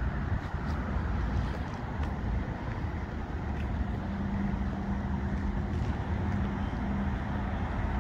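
Peterbilt 389 semi tractor's diesel engine idling steadily with a low rumble. A steady hum comes in about halfway through.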